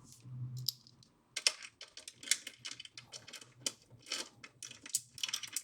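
Irregular small metal clicks and taps as a spacer, washers and bolts are handled and fitted into a motorcycle toolbox mounting bracket, several light clicks a second.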